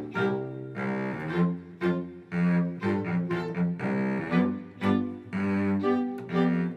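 An orchestra playing a piece in a low register, a run of pitched notes in short phrases with brief breaks between them.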